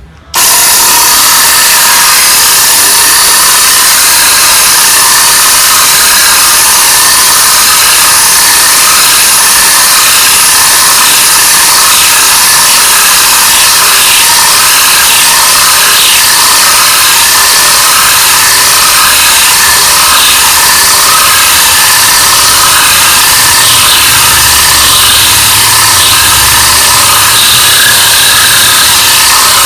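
20V Devon 5283-Li-20TSI cordless drill boring into stone with a 32 mm Unica hex-shank bit, a loud, steady, high-pitched grinding that starts sharply about half a second in.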